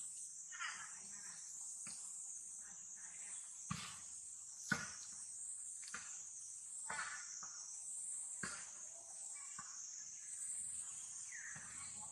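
Steady high-pitched drone of insects, crickets or cicadas, with a few sharp clicks scattered through, the loudest a little under halfway, and some short high calls in between.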